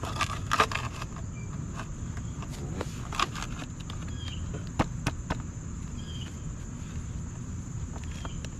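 Steady high insect drone, like crickets, with a few light knocks and scrapes as a plastic landscape receptacle box is pushed and worked into the ground by hand.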